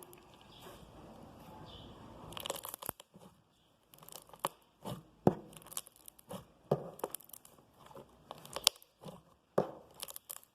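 Slime with styrofoam beads being squeezed and stretched by hand, making irregular sharp crackles and pops, a few a second, after a faint hiss in the first two seconds.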